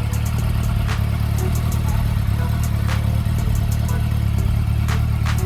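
Honda CB400 Super Four Spec 3 inline-four engine idling steadily, with a sharp tick from the engine about every couple of seconds over the idle. The ticking is the fault under investigation, which the mechanic suspects may be a cam chain tensioner problem.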